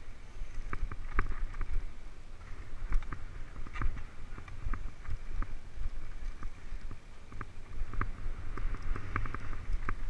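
Mountain bike rolling down a rocky dirt trail: irregular rattles and knocks from the bike over rough ground, with a steady low wind rumble on the mounted camera's microphone.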